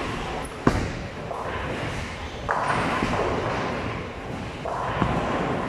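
Bowling-alley din of balls rolling and pins crashing, with a sharp thud about two-thirds of a second in as a bowled ball lands on the lane. Fresh swells of rolling and clattering come twice more.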